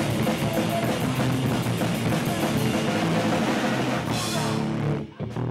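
Hardcore punk band playing live: electric guitar, bass guitar and drum kit, with a brief break about five seconds in.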